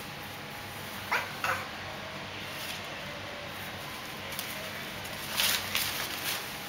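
A potted plant tipping over onto a tile floor, the pot knocking and the leaves rustling in a short cluster of sounds about five and a half seconds in. Earlier, about a second in, come two short high yelps.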